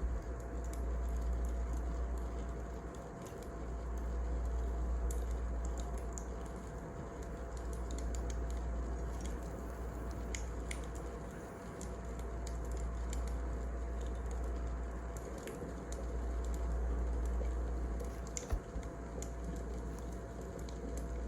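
Wood fire crackling: scattered sharp pops over a low rumble that swells and fades every few seconds.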